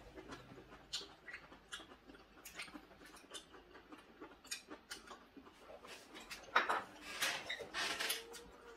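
Close-up eating sounds: chewing, with light, irregular clicks of chopsticks against bowls and dishes, and a louder stretch of chewing about two-thirds of the way through.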